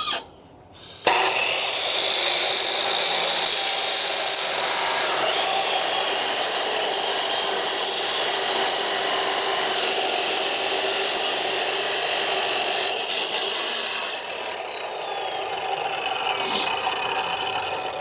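Power cut-off saw spinning up with a rising whine and cutting through steel rebar with a steady, harsh grinding hiss, then the motor winding down with a falling whine after the cut.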